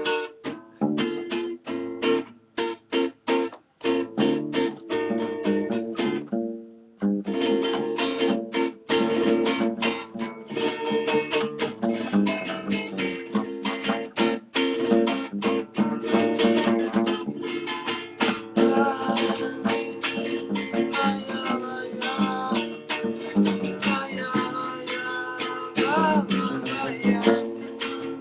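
Acoustic guitar (violão) strummed in a samba rhythm, playing an instrumental passage without singing. The strumming breaks off briefly about six seconds in, then picks up again.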